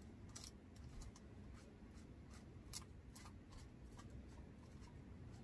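Faint scratching and a few soft ticks of a foam sponge brush stroking sealer onto a spoon rest made of air-dry clay.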